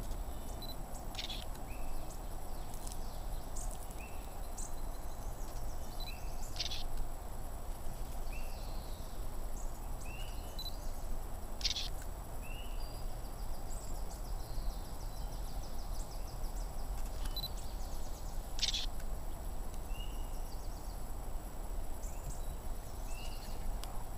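Marsh ambience: a bird repeats a short rising chirp every second or two. A still camera's shutter clicks now and then, about four times, over a steady low rumble.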